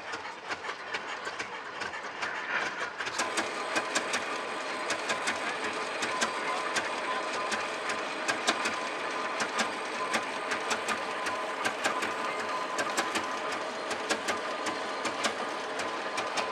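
Victoria oil ploughing engine's horizontal twin-cylinder petrol-paraffin engine running, a steady mechanical clatter of fast, even ticks.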